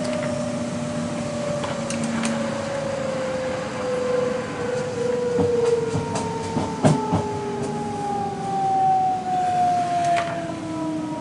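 Electric commuter train's traction motors whining in several tones that fall slowly in pitch as the train slows for a station, over a steady rumble heard from inside the carriage. A few sharp clicks from the wheels over the track.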